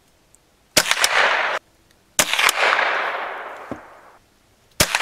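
Henry U.S. Survival Rifle (AR-7), a semi-automatic .22 LR, firing three shots about two seconds apart. Each crack has a quick second crack close behind it and a fading ringing tail.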